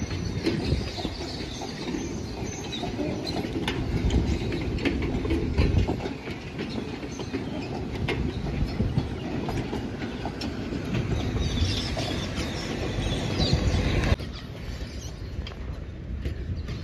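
Loaded sugarcane bins of a two-foot-gauge cane train rolling past, wheels rumbling and clicking over the rail joints. About fourteen seconds in, the sound drops suddenly to a quieter, more distant rumble.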